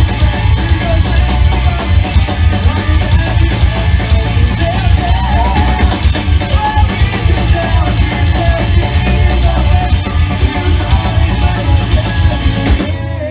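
Rock band playing live with a drum kit, loud and dense throughout; the full band stops near the end.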